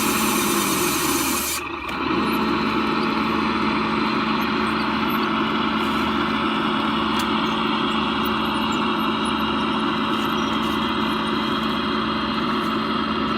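1/14-scale radio-controlled Cat D11 bulldozer model running steadily, with a constant hum; the sound dips briefly just under two seconds in.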